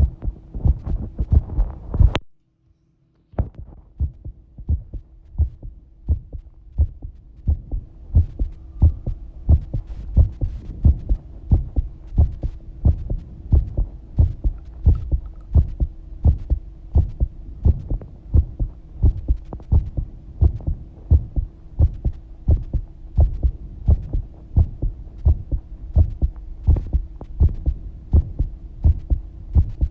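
Human heartbeat, a steady rhythm of paired lub-dub thumps, over a faint steady hum. The sound cuts out for about a second near the start, then the beating carries on.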